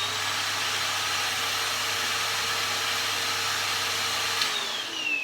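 Henry canister vacuum cleaner running with a steady whooshing motor noise. It is switched off about four and a half seconds in, and its whine falls as the motor spins down.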